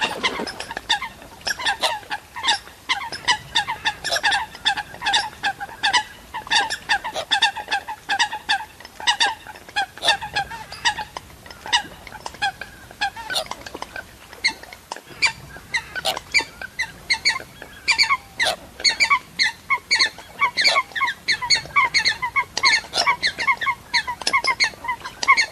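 Waterhens calling: a fast, unbroken run of short, sharp calls, several a second, going on throughout.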